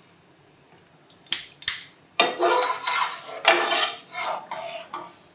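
Slotted metal spoon knocking and scraping against a metal karahi as a watery semolina mixture is stirred: two sharp knocks a little over a second in, then a couple of seconds of clattering scrapes with a ringing metallic tone.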